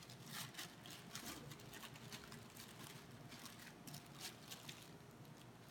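Sheet of paper crinkling and rustling in a string of short, irregular rustles as hands press and handle a piece of cookie dough wrapped in it.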